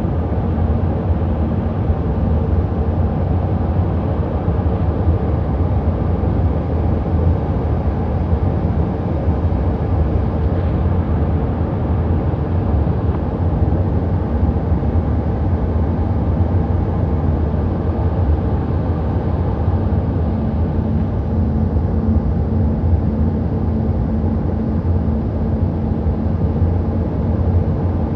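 Steady cabin noise of a jet airliner on final approach with flaps extended: engine drone and rushing air, with a low steady hum underneath.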